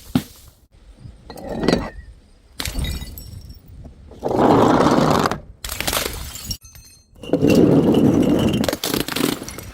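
Glass bottles smashing and shattering one after another, in several separate crashes with tinkling shards. The two loudest, longest crashes come about four and a half and about eight seconds in.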